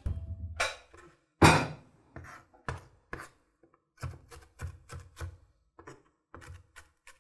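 Knife chopping on a chopping board: a run of about a dozen sharp, uneven strikes, the loudest about one and a half seconds in.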